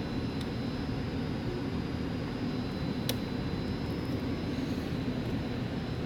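Steady low rumble of running HVAC equipment, with one sharp click about three seconds in as wire connectors are handled.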